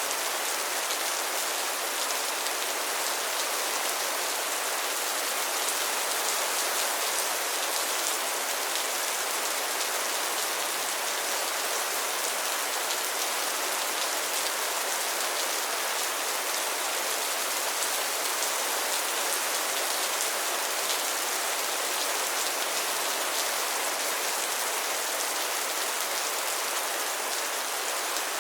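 Heavy rain falling steadily, a dense even hiss of drops with many fine individual drop ticks.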